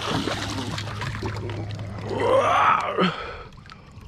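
Water splashing and churning as a northern snakehead thrashes at the surface beside the kayak. About two seconds in comes a drawn-out, excited wordless exclamation, the loudest sound here.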